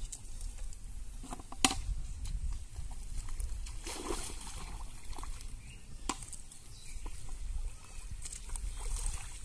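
Pond water sloshing and splashing as a man wades in up to his chest. A sharp click sounds about a second and a half in, and another a little after halfway.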